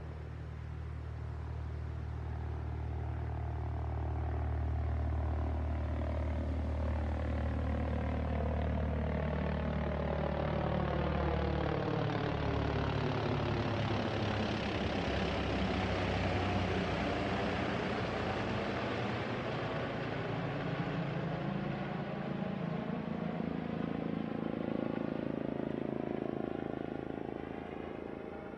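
An Airbus H145 twin-turbine helicopter flying low overhead: its rotor and engine noise grows, holds loud as it passes, then fades as it moves away. A sweeping shift in tone runs through the sound as it passes overhead.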